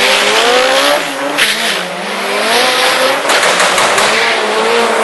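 Ford Focus drag car's engine at full throttle on a drag-strip pass, its pitch rising and then dropping back a few times as it shifts up through the gears.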